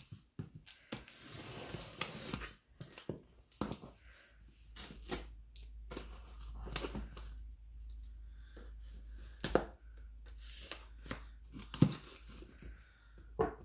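A knife slicing through packing tape on a cardboard shipping box, with scraping, tapping and crinkling of the cardboard as it is cut and handled. Two sharp knocks, about nine and a half and twelve seconds in, come as the cardboard end panel is pulled open.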